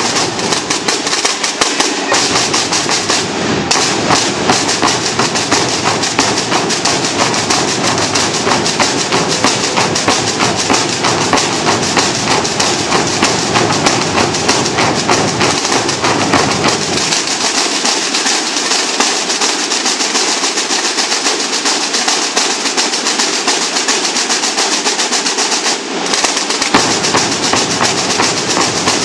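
A large drum corps of snare drums and bass drums playing together in a fast, dense, continuous rhythm. The deep low end drops away a little past halfway and comes back near the end.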